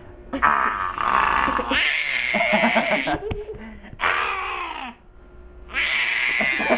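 A series of about five loud, drawn-out cries, each about a second long, with a short lull a little before the end.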